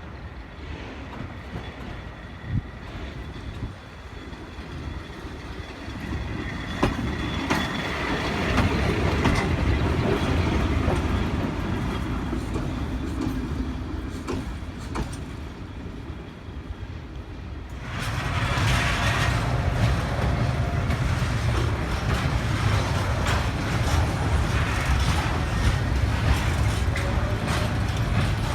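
A shunting train running past, its steady rumble mixed with the clatter of wheels on rail joints. It swells, eases off, then becomes suddenly much louder about two-thirds of the way through.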